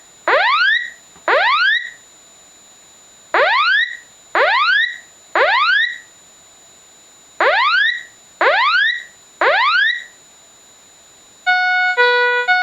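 Fire alarm sounding its warning: a rising electronic whoop repeated in groups of three, about one a second, with a pause of about two seconds between groups. Near the end it switches to a pattern of electronic chime notes.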